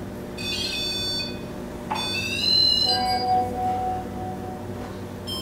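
Electronic tones from a touch- and proximity-triggered ghost-hunting trigger toy being set off: high beeping notes about half a second in, then after a click a second run of notes that glide upward, and a lower steady note from about three seconds in.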